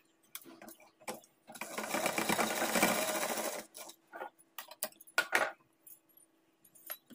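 Sewing machine running in one short stretch of about two seconds, stitching a tie cord onto a blouse, with short clicks and handling knocks before and after.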